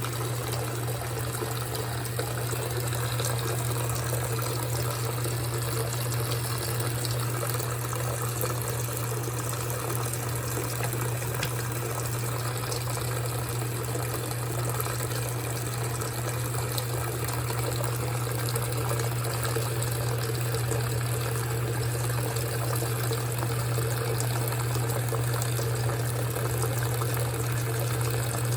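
GE top-load washing machine running a wash cycle with the lid open: water rushing and splashing in the tub over a steady low hum.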